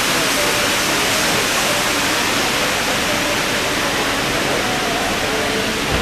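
Indoor water wall: a sheet of water streaming down a tall wall, making a steady, even rush.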